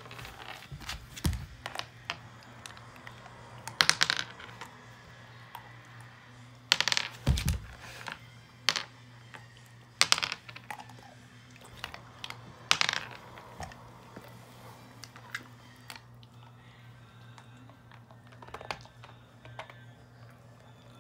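Domestic wolf biting down on and chewing hard sugar-coated Jordan almonds, giving loud, sharp crunches in irregular clusters every second or few. After about thirteen seconds the crunches become fewer and softer.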